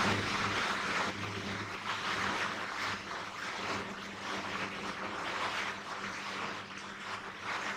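Felt-tip marker scratching across a whiteboard in many short strokes, drawing a broom's bristles, over a steady low electrical hum.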